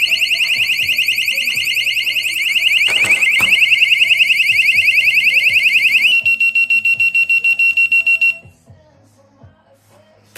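Cuteefun door and window alarm's siren sounding: a loud, fast-warbling high shriek for about six seconds. It then switches to a rapid high beeping, about ten beeps a second, and cuts off suddenly about two seconds later. A short knock sounds around three seconds in.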